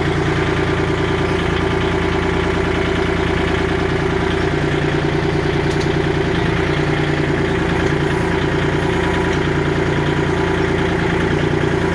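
Kubota L2501 tractor's three-cylinder diesel engine running steadily at low speed, heard close up from the driver's seat.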